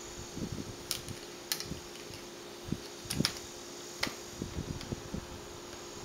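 Plastic snap clips of an Acer Aspire 1551 laptop's screen bezel clicking into place as the bezel is pressed around the lid: a handful of sharp clicks a second or so apart, with soft knocks of plastic being handled between them, over a steady low hum.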